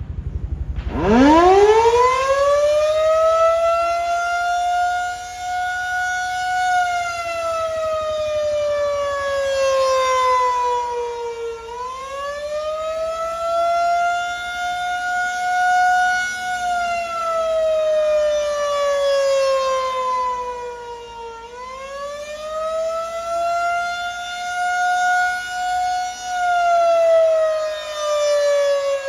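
Federal Signal 2001-SRN electromechanical rotating siren sounding the attack signal. It winds up from silence about half a second in, then rises, holds and slides down in pitch, and repeats this roughly every ten seconds. Its loudness swells and fades as the slowly rotating horn turns toward and away.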